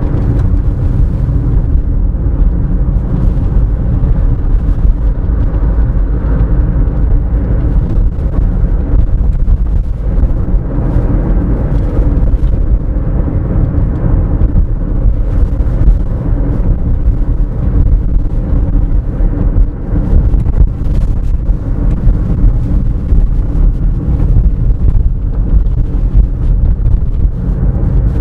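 Cabin noise of a 2011 Toyota RAV4 cruising: a steady low rumble of road and tyre noise, with the 2.0-litre four-cylinder engine running evenly under it.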